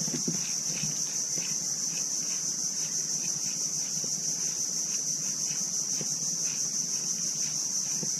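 Steady, high-pitched drone of insects, with faint low knocks now and then.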